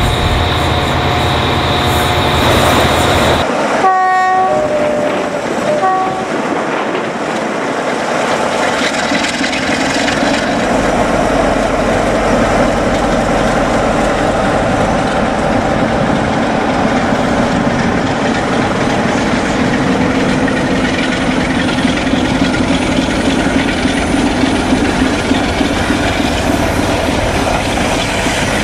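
A Class 47 diesel locomotive sounds its two-tone horn about four seconds in, high, then low, then high again. It then runs past slowly with its Sulzer diesel engine humming, hauling a coach and the dead Bulleid Pacific steam locomotive 34046, whose wheels roll over the track. A steady hum at the very start cuts off suddenly before the horn.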